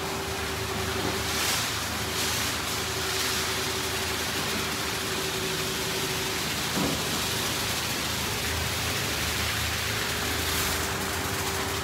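D&S IQ Express ST car wash machine spraying water over the car, a steady hiss heard from inside the car, with a steady machine hum underneath.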